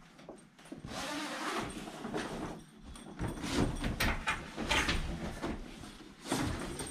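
A soft padded fabric seat cover being handled and fastened onto a boat bench: a run of irregular rustling and scraping noises, loudest between about three and five seconds in.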